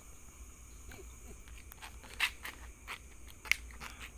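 A few short, irregular footsteps on a path, the two loudest about two and three and a half seconds in, over a faint steady high-pitched hiss.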